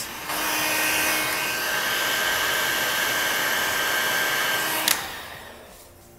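Electric heat gun blowing steadily for about four and a half seconds, with a thin whine over its airflow, then switched off with a click and winding down over about a second. It is heating the outside of the car window so the tint film shrinks back onto the glass.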